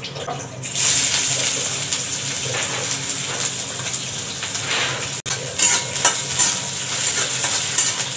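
Food sizzling in hot oil in a metal kadai, the sizzle rising suddenly about a second in and then running on steadily. A metal spatula scrapes and clicks against the pan as the food is stirred.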